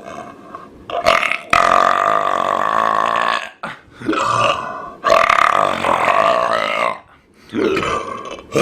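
Loud, deliberate burps forced out one after another: two long drawn-out ones of about two seconds each, a short one between them, and another near the end.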